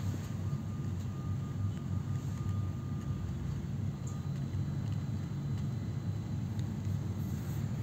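Steady low rumble of a passenger train heard from inside the carriage as it slows into a station, with a faint thin high tone for the first four seconds or so.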